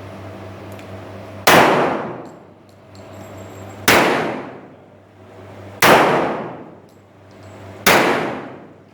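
Four revolver shots, spaced about two seconds apart, each followed by a ringing echo that dies away over about a second, over a steady low hum.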